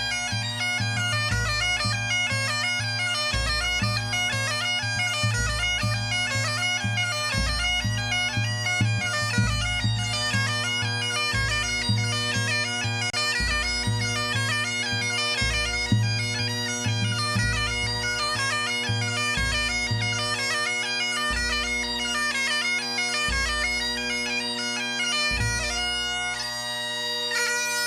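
A pipe band playing: Highland bagpipes sound a continuous tune over their steady drones, with drums beating along. Near the end the melody settles onto a held note.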